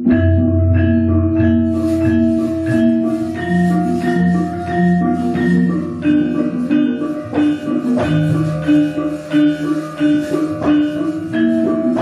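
Javanese gamelan playing: metallophones strike a steady run of repeating pitched notes over low held tones.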